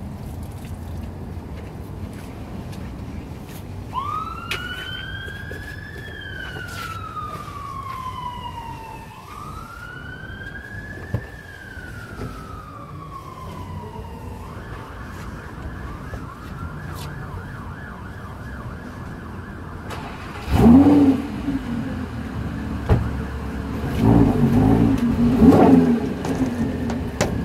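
Emergency-vehicle siren wailing in two slow rising-and-falling sweeps, then switching to a faster warble that fades away, over a steady hiss. Louder low-pitched sounds break in near the end.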